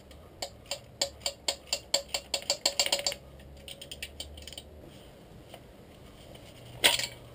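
Ratchet spanner clicking in a quick run that speeds up while a nut on the clutch master cylinder is worked, then a few fainter clicks. A single metallic clatter near the end.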